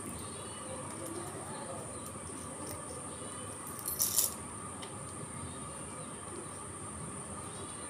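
Quiet background with a steady high-pitched insect chirring, like crickets. A short rattling scrape about four seconds in as a shoe is being fastened.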